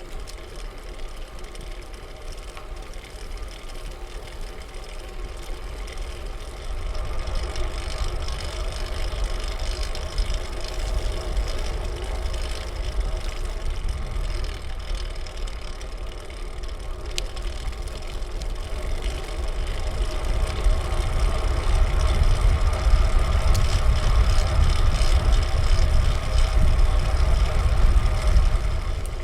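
A fixed-gear bicycle being ridden, with wind rumbling on the camera microphone and a steady hum from the road and drivetrain. It gets louder about seven seconds in and louder again past twenty seconds.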